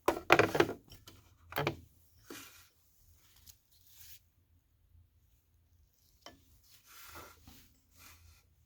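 Handling noise from a wristwatch on a fabric NATO strap being moved about and set down: a series of short rubs and scrapes with brief pauses between them.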